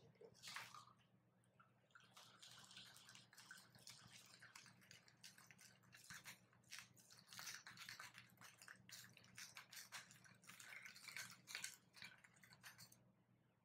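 A shaken vodka gimlet strained from a metal cocktail shaker into a stemmed glass: a thin trickle of liquid with many small clicks from the shaker. It starts about a second in and stops about a second before the end.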